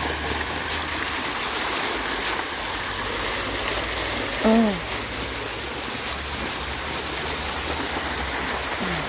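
Splash-pad fountain jets spraying up through a metal floor grating, a steady hiss of falling, splashing water. A brief voice exclamation comes about halfway through.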